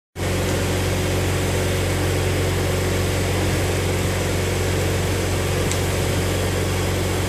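Engine running at a steady idle: an even, unchanging low hum.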